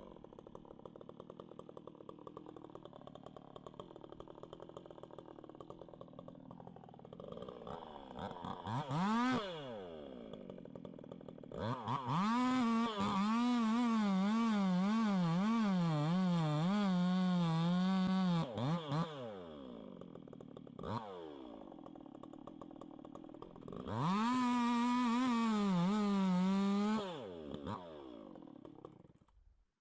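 Two-stroke chainsaw idling, revved briefly, then run at full throttle twice in long bursts of several seconds, its pitch wavering up and down. Between the bursts it drops back to idle, and the sound cuts off abruptly near the end.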